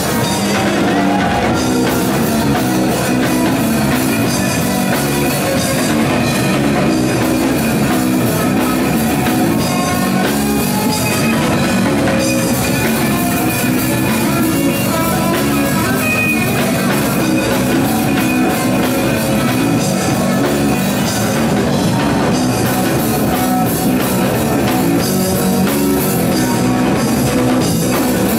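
Live punk rock band playing loud and without a break: electric guitar, red electric bass guitar and drum kit.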